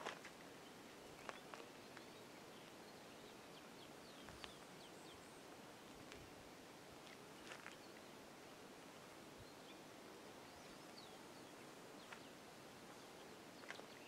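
Near silence in the open air: a faint steady hiss with a few short, high bird chirps and scattered soft clicks.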